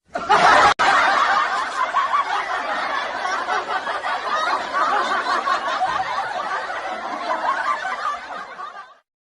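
Laughter sound effect: continuous laughing that starts abruptly, has a split-second gap just under a second in, then tails off gradually and stops just before the end.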